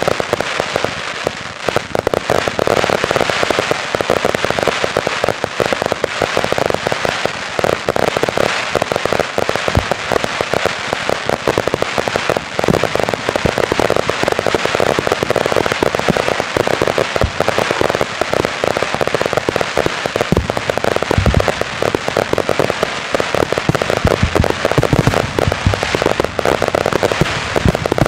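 Fireworks display: dense, unbroken crackling and popping from many effects bursting at once, with a few deeper booms in the later part.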